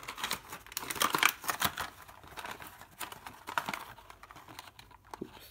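Thin plastic blister packaging crinkling and clicking as it is handled, busiest in the first two seconds and sparser after.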